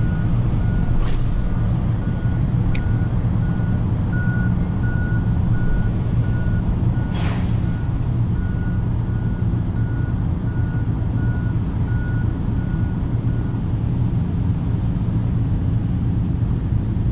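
A truck's reversing alarm beeping evenly, about one and a half beeps a second, over a steady low engine rumble; the beeping stops about four-fifths of the way through. A short hiss comes about seven seconds in.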